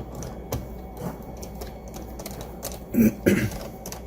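Irregular small clicks and taps of a Phillips screwdriver and screws against the plastic bottom cover of a Roomba i7 robot vacuum as it is screwed back on, with two short louder sounds about three seconds in.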